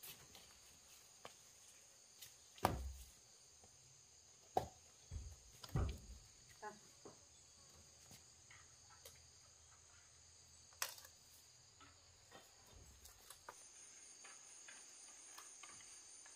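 Insects chirring steadily at a high pitch, a second, higher chirr joining about thirteen seconds in, with a few sharp knocks and clacks scattered through, the loudest about three, four and a half, six and eleven seconds in.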